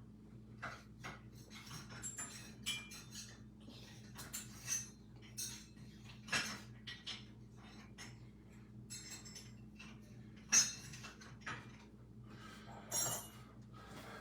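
Scattered light clicks and taps of small objects being handled, irregular and a few per second, the sharpest about two-thirds of the way through, over a faint steady low hum.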